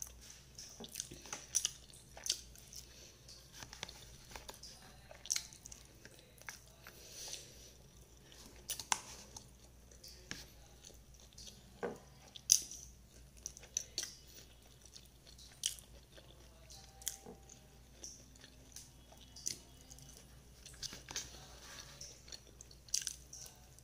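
Close-up chewing of a person eating fried eggplant with her hands: wet mouth sounds broken by irregular sharp clicks and lip smacks.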